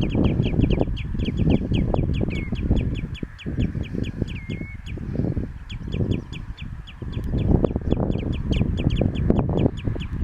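A bird calling in a fast series of short, sharp notes, about seven a second, with a couple of brief pauses, over a heavy low rumble.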